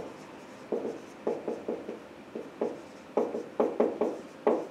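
Marker pen writing on a whiteboard: a run of short separate strokes, spaced out at first and coming quicker in the second half.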